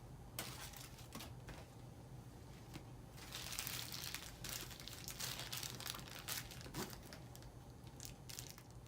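Packing tape being peeled and torn off a package, with the wrapping crinkling: faint scratchy rustles and small clicks, a little louder through the middle.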